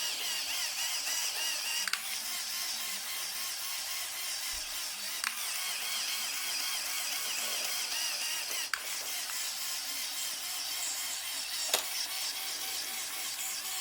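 Lego Technic Power Functions motor driving the model's plastic gears: a steady, slightly wavering whirr, with a sharp click about every three seconds, four in all.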